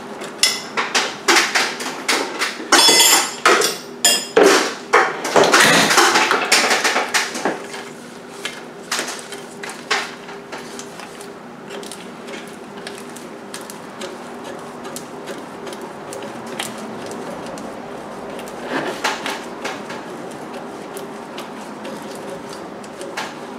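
Hand tools clinking on metal and a socket ratchet clicking in short runs as bolts are worked loose on the engine's cylinder head, busiest in the first several seconds. After that only occasional light clicks over a steady low hum.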